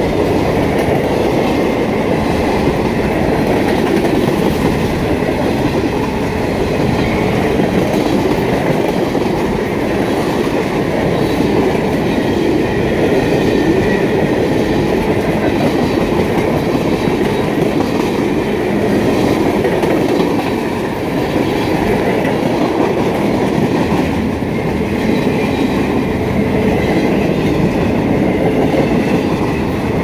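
A freight train's cars (gondolas, tank cars and flatcars) rolling past close by. Their steel wheels on the rails make a loud, steady rumble.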